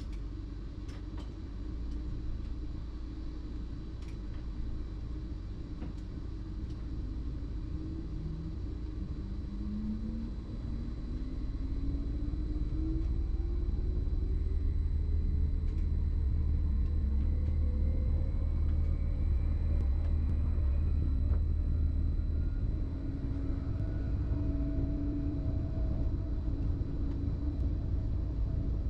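Cab of a BLS RABe 515 'MUTZ' electric multiple unit under way: a steady low rumble with the traction drive's whine rising slowly in pitch as the train picks up speed. The sound grows louder partway through.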